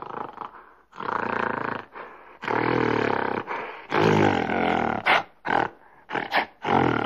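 Deep, loud calls from a large animal: three long calls, then a run of short grunts near the end.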